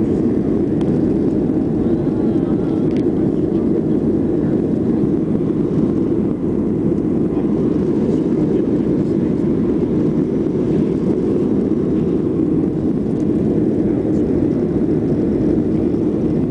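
Steady engine and rushing-air noise inside a jet airliner's cabin in flight, a constant low drone with no changes.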